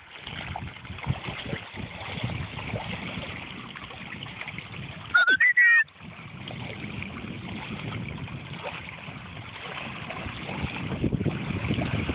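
Wind rumbling and buffeting on a phone microphone, with small waves lapping and splashing among shoreline reeds. About five seconds in comes a very loud, brief high-pitched sound in three quick parts, its pitch sliding up and down.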